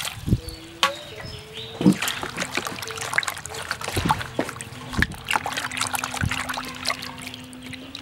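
Hands washing whole fish in a plastic basin of water: irregular splashing, sloshing and wet slaps as the fish are rubbed and turned in the water.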